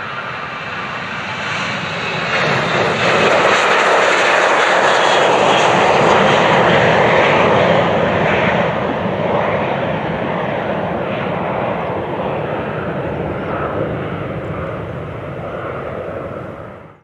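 Boeing 737-900's two CFM56-7B turbofan engines at takeoff thrust as the jet lifts off and climbs away. The jet noise swells over the first few seconds, is loudest for several seconds, then slowly fades as the aircraft recedes. It cuts off suddenly near the end.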